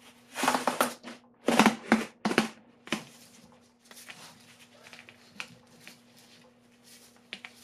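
Handling noise as a compressed coil spring is fitted onto a new front strut: several short scraping rustles of the parts in the first three seconds, then light scattered ticks and taps. A steady low hum runs underneath.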